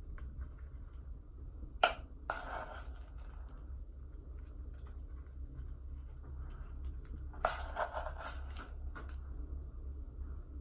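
Two sharp clicks, about two seconds and seven and a half seconds in, each followed by a second or so of scraping, over a steady low hum.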